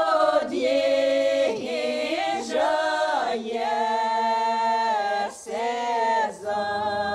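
A group of elderly village women's voices singing a traditional Ukrainian folk song a cappella. The phrases have long held notes and are separated by brief breaths.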